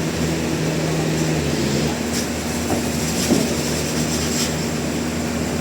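Sawmill machinery running steadily: a low mechanical drone with held hum tones, one of which drops out about two seconds in, and a few faint clicks and clatters.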